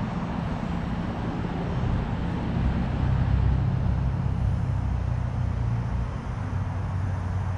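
Low engine hum from a passing motor, swelling about three seconds in and then easing off as its pitch slowly drops.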